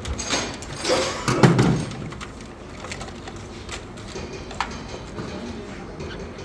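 Scattered clicks and knocks of hand work, with a louder clatter between one and two seconds in.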